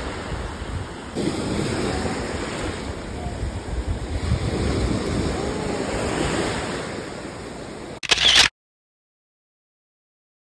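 Small waves washing onto a sandy shore, with wind buffeting the phone's microphone. A short loud burst of noise comes about eight seconds in, and the sound then cuts off abruptly.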